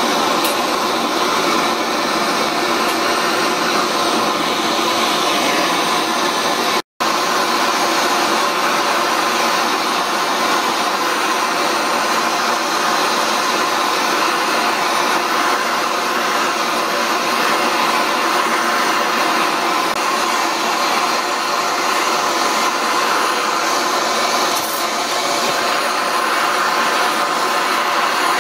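Hose-fed gas torch burning with a steady rushing hiss while its flame heats a metal strip clamped in a vice. The sound breaks off for an instant about seven seconds in.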